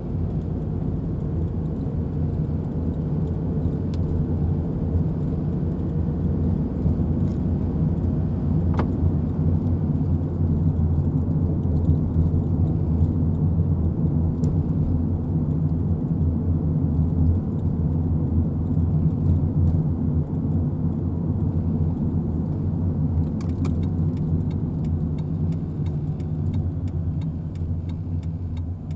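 A car running, with a steady low engine and road noise and faint scattered clicks and rattles over it.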